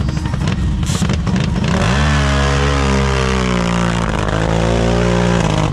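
Mud racer's engine under hard throttle: a rough rumble for about two seconds, then high, steady revs whose pitch rises, dips once and climbs again, cutting off abruptly near the end.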